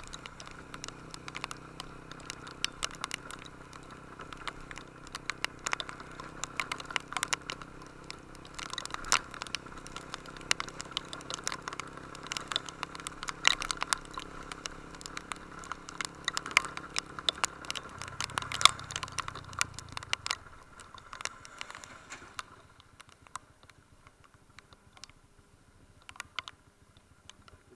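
Raindrops pattering irregularly on the camera and mic over the low running of a Honda Invicta's single-cylinder engine. Near the end the engine note swells briefly and then falls away, leaving only scattered taps.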